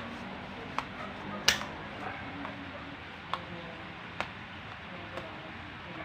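A handful of sharp clicks and light knocks, about five, the loudest about a second and a half in, over a steady faint hiss.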